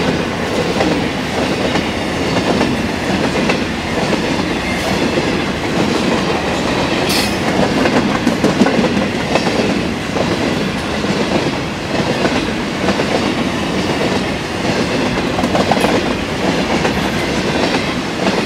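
Empty grain hopper wagons rolling past at speed: a steady wheel-on-rail rumble with repeated clickety-clack from the wheels over rail joints, and one sharp clank about a third of the way through.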